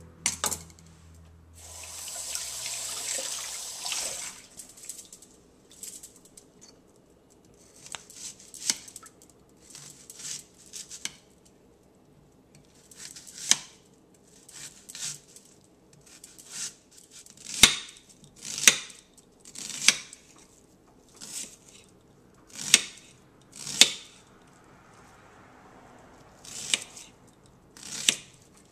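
Knife slicing a peeled onion directly on a granite countertop: separate crisp cuts with the blade tapping the stone, roughly one a second with irregular pauses. About two seconds in there is a hiss lasting about two seconds.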